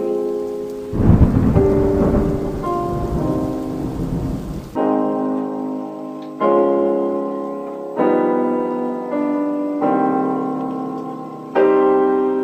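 Piano music of slow chords that ring and fade. About a second in, a rumble of thunder and rain noise swells over the music, part of the rain-themed dance music, and cuts off abruptly a few seconds later. After that, new piano chords are struck roughly every second and a half.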